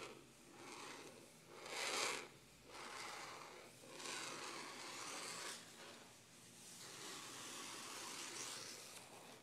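Fingertips and nails scratching and rubbing across a sheet of textured paper in a series of uneven strokes. The loudest stroke comes about two seconds in.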